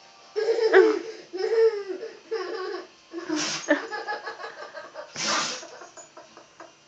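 A baby laughing in short bursts, with a Doberman sneezing twice: brief sharp bursts of breath about three and a half and about five seconds in.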